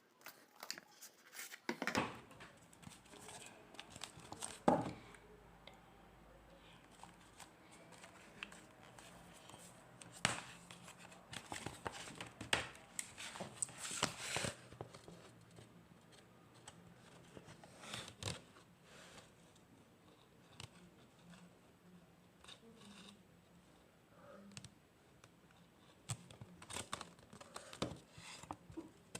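Plastic wrapping on a Blu-ray case being torn and crinkled, with scattered clicks and taps as the case is handled, busiest in the middle.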